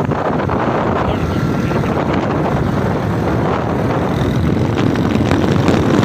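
Motorcycle running along a road at speed: a steady engine drone mixed with wind buffeting the microphone.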